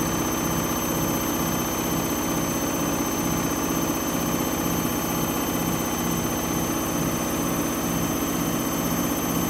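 Candy Grande Vita 7 kg washing machine running a fast spin, a loud steady whir with a low rumble. The owner takes the noise for drum bearings on the way out.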